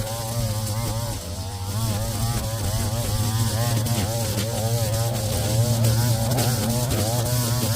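Small gasoline engine of lawn equipment running, a steady low hum with a higher whine that wavers up and down in pitch.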